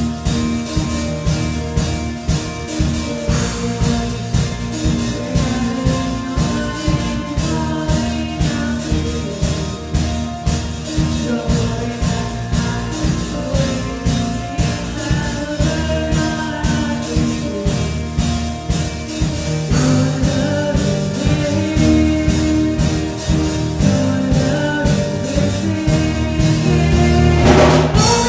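Live worship band playing: singing over electric guitars, keyboard and drum kit with a steady beat, swelling louder near the end.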